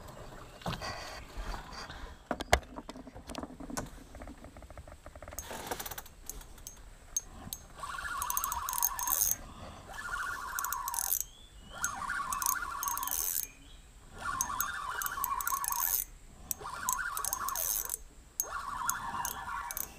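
Spinning reel being cranked in six short spurts from about eight seconds in, a whirring with fine rapid clicking, as a hooked giant river prawn is reeled in. A single sharp knock comes earlier, about two and a half seconds in.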